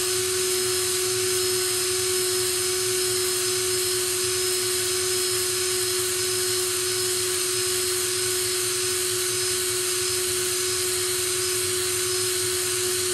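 Power drill running at a steady speed with an even whine, spinning a bench buddy abrasive brush hone through a TH350 transmission governor's valve bore. The hone lightly scours dirt and grime from the bore so the valve can move freely.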